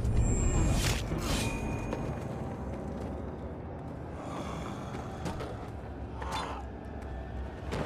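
Film fight sound effects: a sword blow lands with a sharp swish and impact in the first second and a half, followed by a low steady rumble and a couple of short gasps from the stricken giant warrior.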